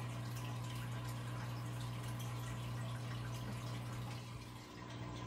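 Aquarium water trickling and dripping over a steady low motor hum, from the tank's filter. The hum dips briefly near the end.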